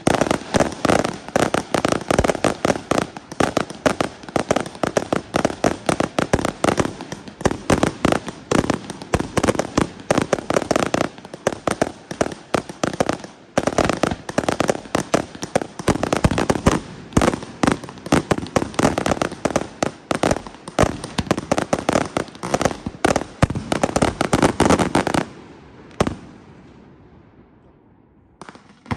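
Fireworks display firing a rapid barrage of aerial shots alongside ground fountains: dense, continuous bangs, several a second. The barrage stops abruptly about 25 seconds in, one more bang follows, the noise dies away, and the firing starts again at the very end.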